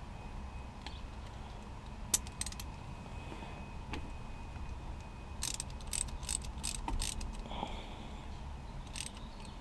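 Ratchet wrench with a 15 mm socket clicking in a few short runs of sharp clicks, working the nut that holds the Jeep Wrangler TJ's shift knob on the shift lever.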